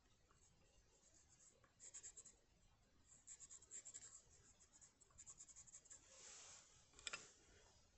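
Faint scratching of a drawing tool on paper, in bursts of quick short strokes, with one longer stroke and a couple of sharp clicks near the end.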